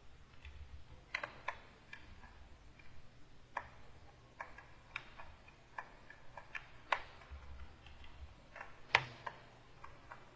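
Faint, irregular light taps and clicks of a stylus on a graphics tablet during painting strokes, about a dozen, the sharpest about nine seconds in.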